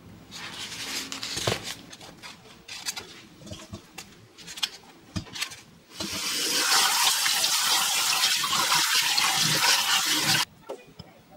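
Light knocks and rustling as strawberries are handled, then, about six seconds in, a kitchen tap runs a steady stream of water over strawberries in a stainless steel colander in a steel sink. The water cuts off suddenly near the end.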